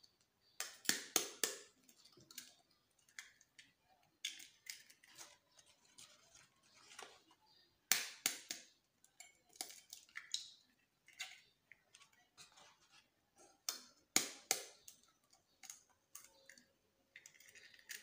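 Eggs being cracked open over a plastic tub: sharp taps of shell against the rim or a fork, in short groups of two or three, repeated several times with small clicks between.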